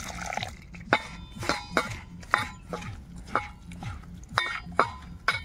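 Water trickling into a stainless steel bowl of rice-flour batter, then a hand squeezing and mixing the wet batter, knocking against the bowl about nine times; each knock makes the steel ring briefly.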